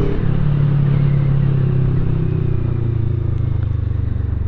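CFMoto 400NK's parallel-twin engine running steadily as the motorcycle rides along. Its note drops a little in pitch about halfway through, then holds steady.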